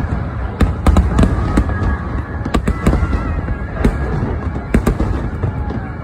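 Aerial fireworks bursting in quick irregular succession, sharp bangs and crackles over a continuous low rumble, with music playing faintly underneath.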